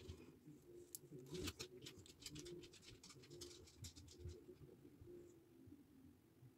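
Near silence, broken by faint small clicks and taps of makeup items being handled over the first few seconds, which then die away.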